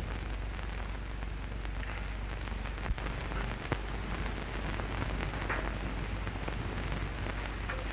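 Steady hiss and crackle of an early sound-film soundtrack, with a low hum underneath and a couple of sharp clicks about three seconds in.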